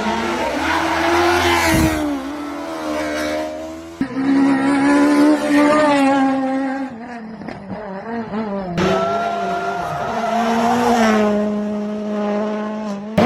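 Rally car engines running hard at high revs, their pitch rising and falling with throttle and gear changes. The sound breaks off abruptly about four seconds in and again near nine seconds, each time starting on a different engine note.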